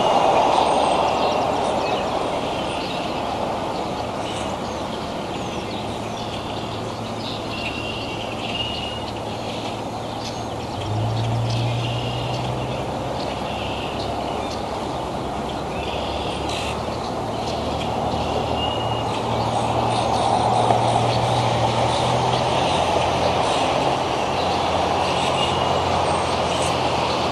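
Steady rumble of heavy vehicle traffic with a low engine hum that strengthens about eleven seconds in, and a few short high bird chirps scattered through.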